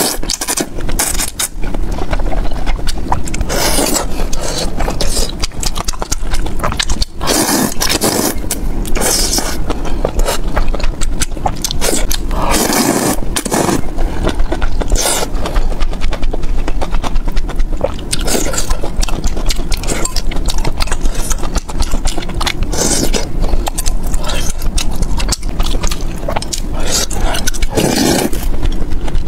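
Close-miked slurping of noodles and spicy broth, loud noisy slurps coming every few seconds with softer mouth noises between.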